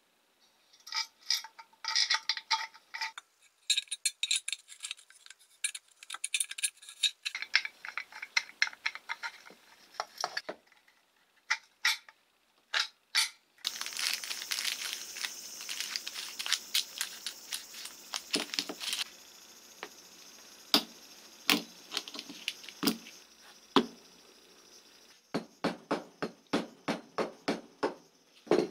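Small metal parts and springs clicking and clinking on a workbench, some clinks ringing briefly. This gives way to a few seconds of crinkling plastic packaging around new ball bearings. Near the end comes a run of quick, evenly spaced mallet taps driving a ball bearing into the aluminium motor end housing.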